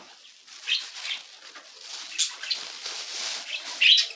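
A few short scrapes and rustles of a nest box being cleaned out: sawdust and dried droppings scraped off a wooden nest box, the loudest stroke near the end.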